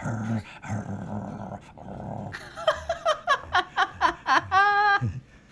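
A dog vocalising at someone: a low rasping growl for about two seconds, then a quick run of short whines rising and falling in pitch, and one longer held whine near the end.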